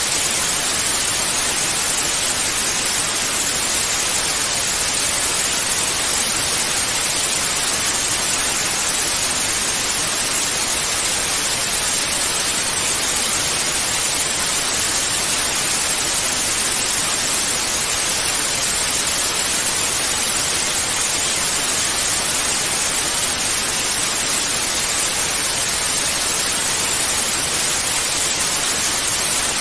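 Analog television static (snow) hissing steadily, an even white-noise hiss with no changes.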